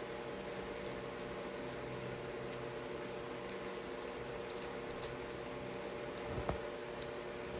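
A cat licking a soft lickable treat from a sachet: small wet lapping clicks over a steady low hum, with a soft bump about six and a half seconds in.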